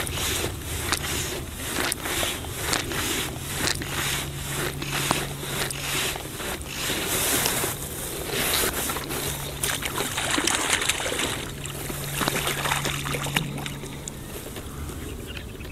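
Wind buffeting the microphone over a steady low hum, with many irregular clicks and rustles as fly line is handled while a hooked trout is played.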